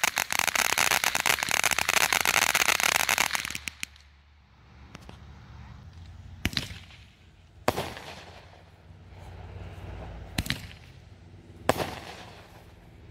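A ground fountain firework sprays sparks with a loud, dense crackling hiss that stops suddenly after about four seconds. Then four separate sharp bangs of small aerial fireworks come a second or more apart.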